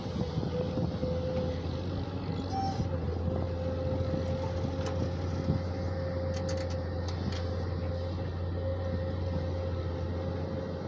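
Diesel engine of a JCB digging machine running steadily, a low drone with a constant high whine over it, and a few faint clicks about two-thirds of the way through.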